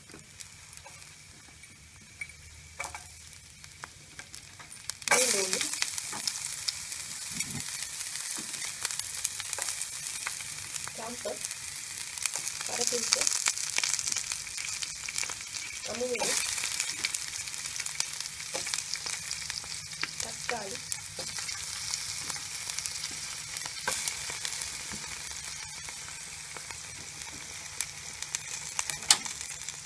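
Sliced vegetables frying in hot oil in a pan: a faint sizzle at first, then a sudden loud sizzle about five seconds in as more ingredients hit the oil, sizzling steadily after that with occasional light clicks.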